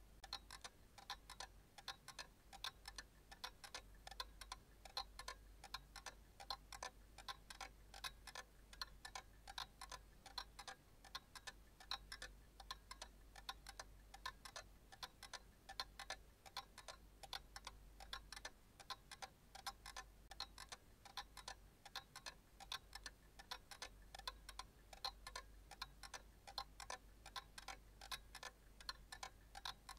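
Clock ticking with faint, even ticks over a faint low hum.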